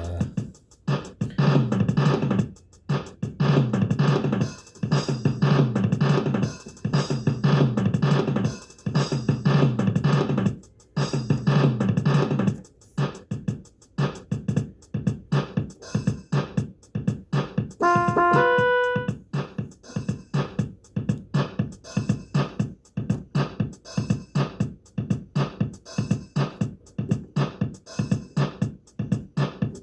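Electronic keyboard playing a drum-machine beat with synth bass and chords. The chords drop out after about 13 seconds, leaving mostly the beat, and a short run of single keyboard notes sounds about 18 seconds in.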